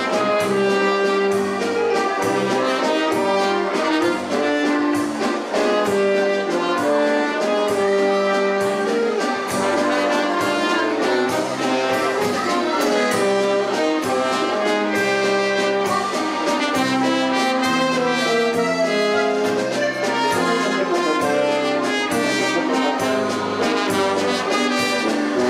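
Brass band playing dance music with a steady beat, trumpets and trombones carrying the tune.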